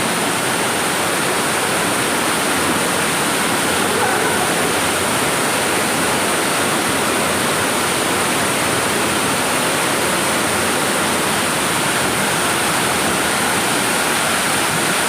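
Waterfall: falling water rushing loud and steady.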